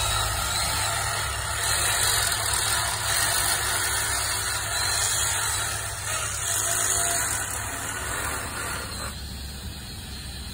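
Hand-held power tool running steadily as it works on a wrought iron fence's bottom rail, with a harsh hiss; it drops away about nine seconds in, leaving a quieter steady noise.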